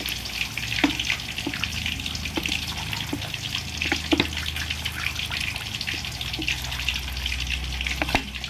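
Sweet fish sauce simmering in a hot pan, a steady crackling sizzle with scattered small pops over a low hum.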